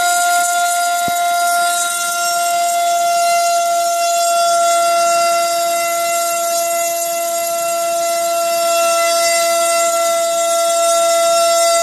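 Cobra 2208 2000kV brushless motor spinning a 6x4.5 propeller at full throttle on 4S: a loud, steady, high-pitched electric whine over the rush of the prop. It is drawing about 23 amps, roughly double its 12 A ESC's rating.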